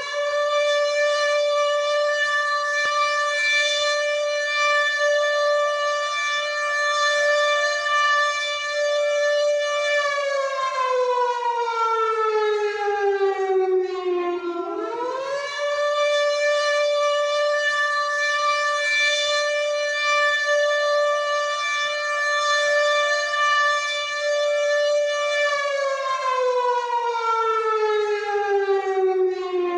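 WW2-style air raid siren sounding a raid alert: one wailing tone that holds a steady pitch for about ten seconds, slides down over about four seconds, swoops quickly back up and holds again, then slides down once more near the end.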